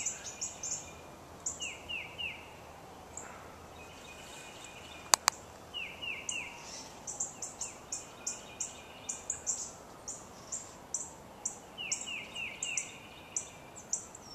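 Wild birds calling: many short, high chirps, with groups of three quick falling notes repeated several times. One sharp click about five seconds in is the loudest sound.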